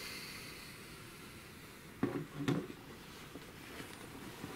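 Two dull knocks about two seconds in, half a second apart, over low room noise.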